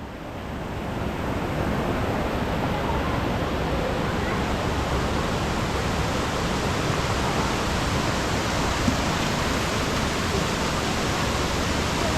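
Steady rush of running water that fades in over the first second or two and then holds level.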